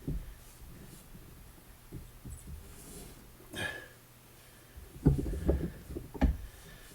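Dull low knocks and clunks from working the heat-loosened, previously seized mower-deck spindle back and forth. They are scattered at first, then bunch into a louder run of knocks about five to six seconds in, over a faint steady hum.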